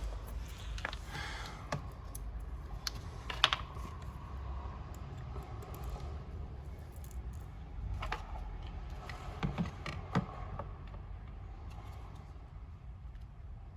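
Scattered light clicks and taps of plastic body panels and screws being handled and fitted on a quad bike, the sharpest tap about three and a half seconds in.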